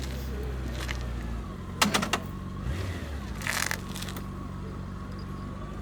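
Police motorcycle engine running steadily at low revs, its note dropping about a second and a half in. A sharp clatter comes near two seconds in, and a short hiss-like burst about a second and a half later.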